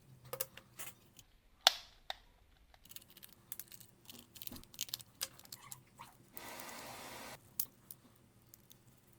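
Small clicks and taps of plastic gamepad parts being handled and pried with small tools while a trigger button is worked loose, with one sharp snap about two seconds in and a scraping hiss lasting about a second near the middle.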